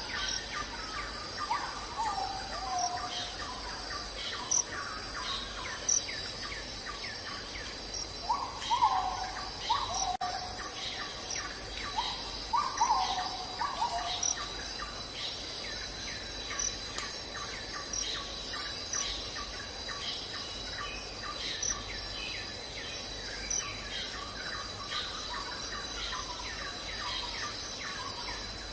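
Nature ambience: many birds chirping over a steady insect drone. A few louder calls fall in pitch at about 2, 8 and 12 seconds in.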